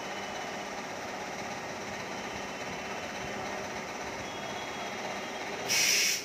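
Steady running noise of an Indian Railways EMU local train pulling away along the adjacent track. Near the end comes a sharp hiss lasting about half a second, which then cuts off.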